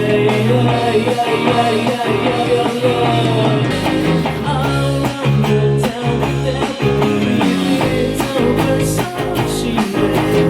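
Indie rock band music: guitars over drums, with the low bass filling in about four seconds in.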